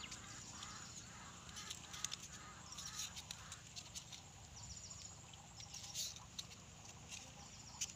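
Faint outdoor ambience with an animal calling a run of short repeated notes, about two a second, over the first three and a half seconds, and a few light clicks.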